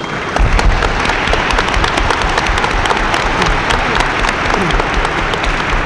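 Audience applauding: many hands clapping in a dense, steady clatter that starts at once, greeting a guest who has just been welcomed by name.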